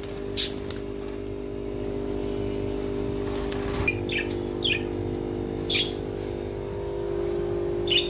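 Budgerigars giving about half a dozen short, high chirps and squawks scattered over several seconds, over a steady low hum.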